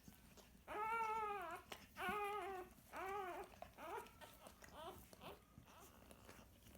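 Newborn British Labrador puppy crying: about five high, arching squeals in quick succession, the first three loudest and the rest shorter and fainter, typical of a just-born puppy.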